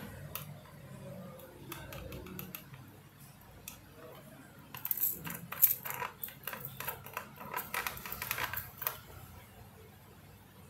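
Plastic trigger-sprayer head on a water bottle being handled and its nozzle turned by hand: scattered small plastic clicks and rattles, coming thick and fast in the middle stretch.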